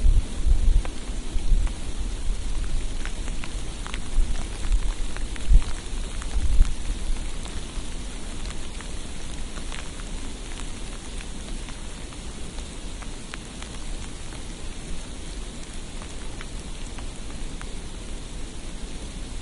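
Steady hiss of falling snow or wet precipitation on a street, with scattered light ticks of it hitting surfaces. Low rumbles come and go in the first seven seconds or so, then ease off.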